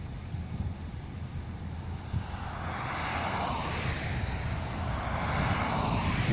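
A vehicle approaching: a rushing noise that swells from about two seconds in and keeps growing louder, with a sweeping whoosh to it. Wind rumbles on the microphone underneath.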